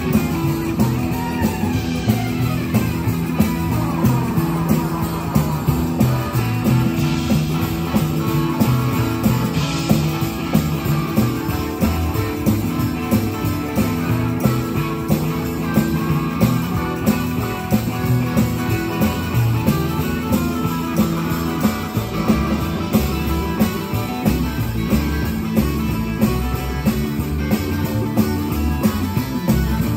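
Live band playing an up-tempo instrumental on electric guitar, upright bass and tambourine, with a steady beat.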